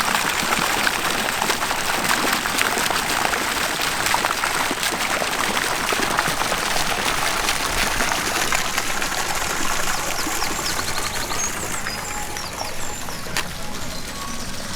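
Steady rushing, splashing water, even and continuous, with a few faint bird chirps near the end.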